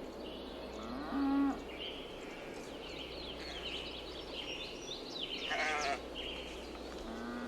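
Livestock bleating three times: a short call about a second in, a louder, wavering call about two thirds of the way through, and another starting near the end. Birds chirp steadily in the background.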